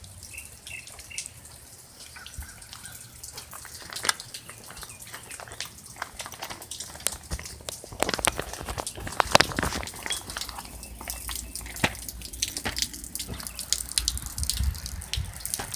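Rain falling, with many irregular drops and drips striking nearby surfaces, growing denser about halfway through.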